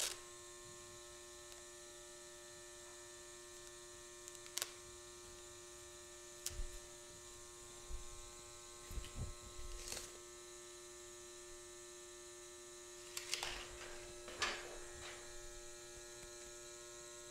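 Faint, steady electrical hum, with a few short, scattered rustles and ticks of masking tape being pulled from its roll and pressed onto a stainless steel wire mesh sheet.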